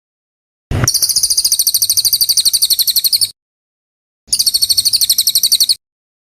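A songbird's rapid high-pitched trill of many quick repeated notes, in two bursts about two and a half and one and a half seconds long. Each burst starts and cuts off abruptly with dead silence between them, as in an edited, looped recording.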